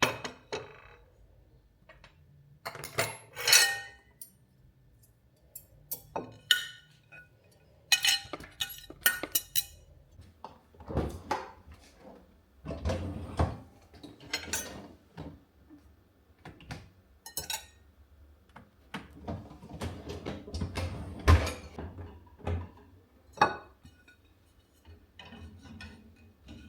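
Dishes and cutlery handled at a kitchen counter: a long series of separate clinks and knocks, a few heavier thuds among them.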